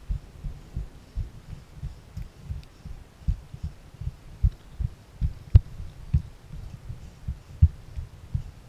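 Muffled low thumps of a hiker's footsteps and body movement while scrambling over sandstone, picked up by a body-worn camera, coming unevenly about two or three a second. One sharper click a little past the middle.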